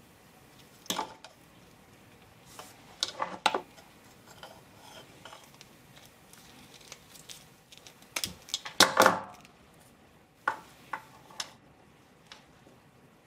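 A handheld wire stripper working on the insulated wires of a motor wire harness: sharp clicks and snips in a few short clusters, the loudest about nine seconds in.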